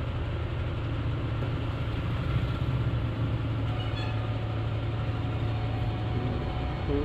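Car engine running in slow, congested traffic, heard from inside the cabin as a steady low hum, with faint road traffic outside.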